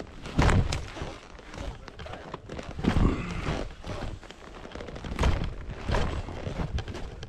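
Hiking boots stepping over burnt forest floor: a heavy step every second or two, with brushing noise of branches and debris between.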